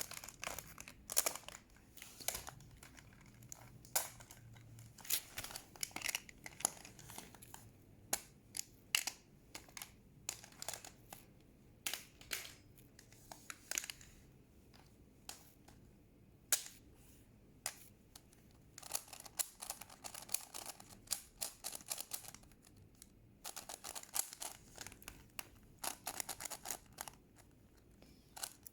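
Plastic puzzle cube being turned by hand: irregular sharp clicks and clacks of its layers, in denser quick runs about two-thirds in and again near the end.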